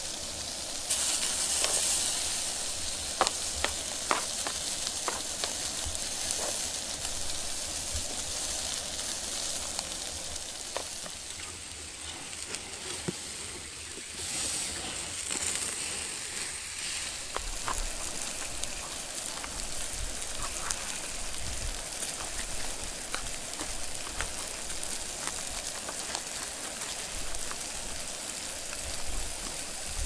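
Food sizzling in a frying pan, with scattered pops and crackles; the sizzle grows louder about a second in.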